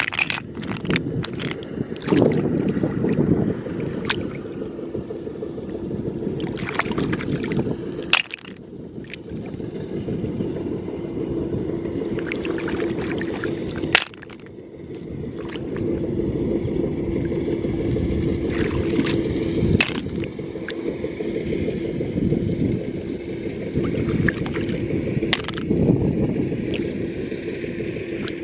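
Snail shells clicking and clacking against one another as handfuls of large freshwater snails are lifted and dropped back into a wicker basket, over water sloshing and a steady low hum.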